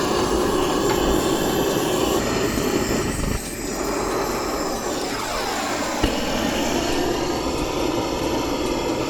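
Propane roofing torch burning with a steady rushing noise as it melts torch-down modified bitumen patches onto the roof over the mounting screws. The noise dips a little about three seconds in, and there is a single sharp click about six seconds in.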